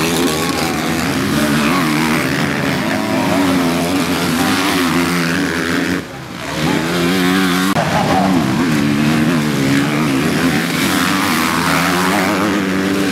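Motocross bikes revving through a rutted dirt corner one after another, engine pitch rising and falling as the riders work the throttle. A brief lull about six seconds in as one bike gives way to the next.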